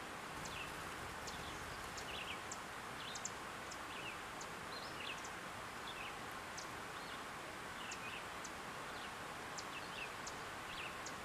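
Small birds chirping: short, high chirps with a quick downward slide, irregular, about two a second, with sharp faint ticks higher up, over a steady background hiss of open country.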